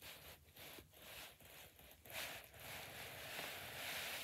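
Faint rustling and scuffing: a quick run of short scuffs, about three a second, then a steadier soft hiss from about two seconds in.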